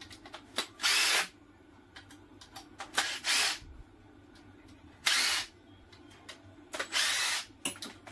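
Cordless driver backing screws out of a plastic battery-pack case: four short runs of the motor, each about half a second long, with small handling clicks between them.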